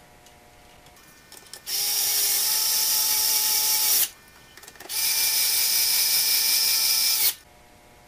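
Power screwdriver running twice, each time for about two seconds with a short pause between, driving in the mounting screws of a GFCI receptacle.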